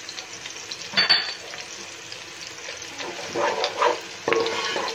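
Sliced onions and whole spices sizzling in hot oil in a pot, with a spatula stirring and scraping: one loud scrape about a second in, and several more strokes near the end.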